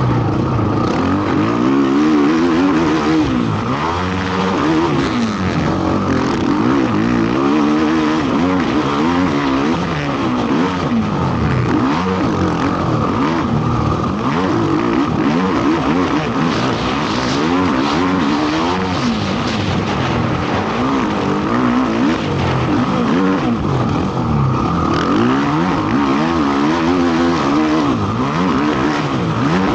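Racing ATV (quad) engine revving up and backing off over and over as it is ridden around a motocross track, its pitch climbing and dropping every second or two.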